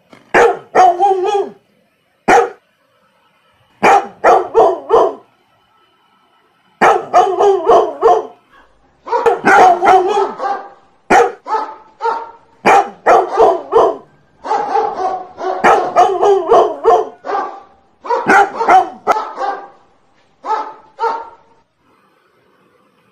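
A dog barking in quick runs of several sharp barks, with short pauses between the runs.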